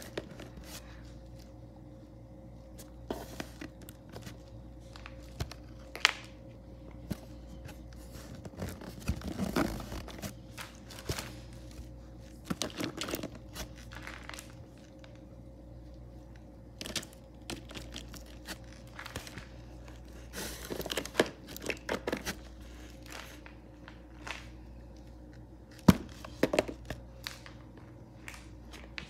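Plastic toy animal figures being shifted and knocked together in a cardboard box: irregular clacks, scrapes and rustling, with a few sharper knocks.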